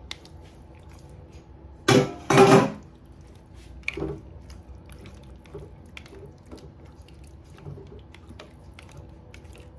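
Raw chicken feet dropped into a pot of boiling water: two loud splashes about two seconds in, a smaller one around four seconds, and faint light ticks in between.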